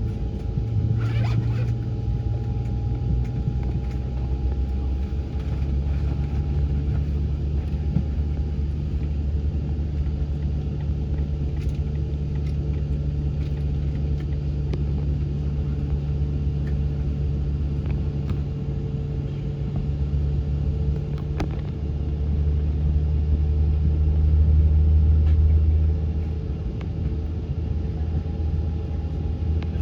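Steady low rumble and hum inside an Airbus A220 airliner cabin, with a constant mid-pitched tone running through it. The rumble swells for a few seconds past the middle, then settles again.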